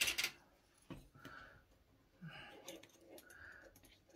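Plastic sewing clips clattering in a metal tin as a hand rummages through them, then quieter clicks and rustles as the clips are handled and fastened onto a stiff sinamay strip.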